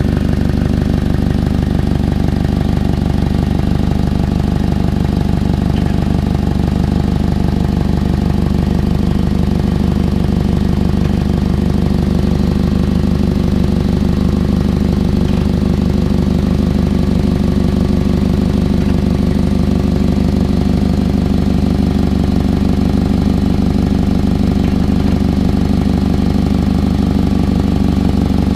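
2006 Toyota Camry engine idling steadily, its exhaust giving a rapid, even pulsing. The owner suspects an exhaust leak or a clogged catalytic converter.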